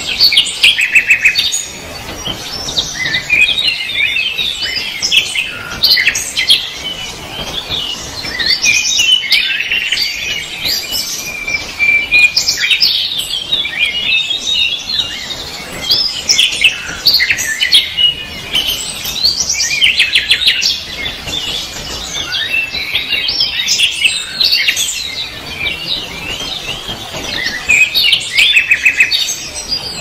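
Many small birds chirping and twittering in a dense, continuous chorus of short chirps and quick trills.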